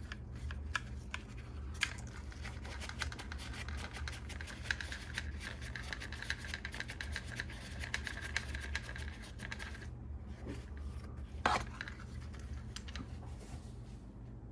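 A surface being wiped briskly with rubbing alcohol, a rapid scratchy rubbing that runs for about eight seconds and then stops, to clean it before an adhesive goes on. A single sharp click follows near the end, over a steady low hum.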